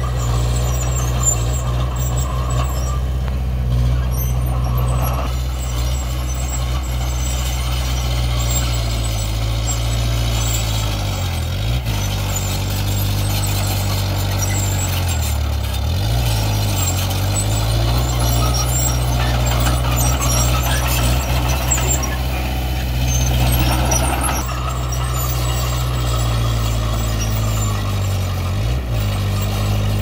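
Komatsu D20P bulldozer's diesel engine running steadily, its pitch dipping and recovering three times.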